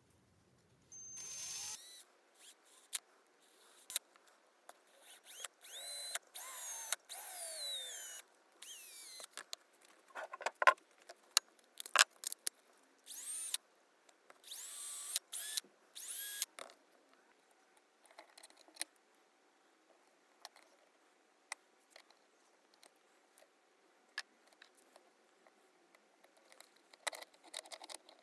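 A small drill boring holes into a carved poplar fishing-lure body, run in several short trigger bursts of one to three seconds whose whine rises and falls with the speed. Short clicks and knocks of handling come between the bursts.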